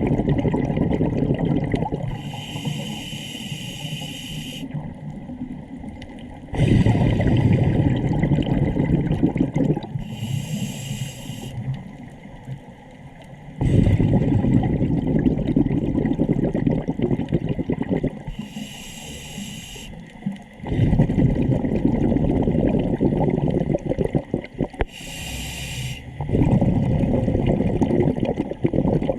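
Scuba diver breathing through a regulator underwater. Each breath is a short hissing inhale followed by a long, loud rush of exhaled bubbles, about four breaths in all, repeating every seven or eight seconds.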